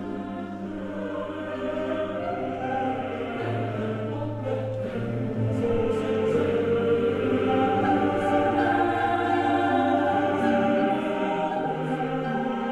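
Choral music: a choir holding long, slowly changing chords, building louder through the middle and easing off near the end.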